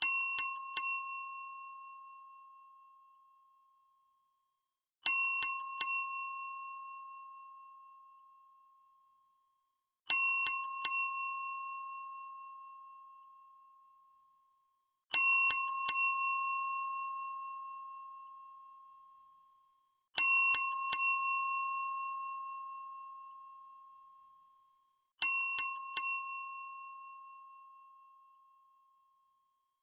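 A bell struck three times in quick succession, 'ding ding ding', the game-show signal for a winner or a correct answer. The triple ding repeats six times, about every five seconds, and each group rings out and fades over about two seconds.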